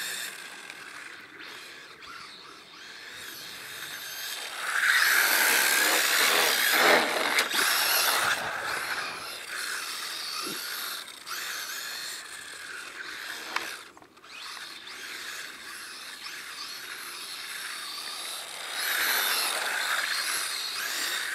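Electric motor and geared drivetrain of a 1/14-scale four-wheel-drive RC rally car whining as it drives on concrete, the pitch rising and falling with the throttle. It is loudest a few seconds in and again near the end.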